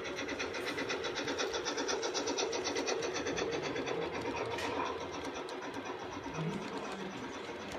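LGB G-scale model train running past: a steady motor-and-gear hum with a rapid, even ticking from the passing train that fades after about three seconds.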